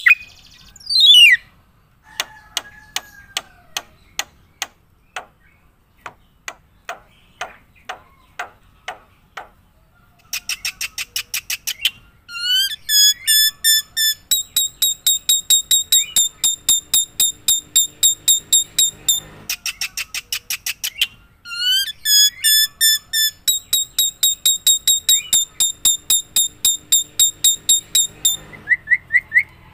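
Bird calling: first a series of sharp ticks at about two a second, then, from about a third of the way in, long runs of rapid, high-pitched repeated chirps at about four or five a second, with two short breaks.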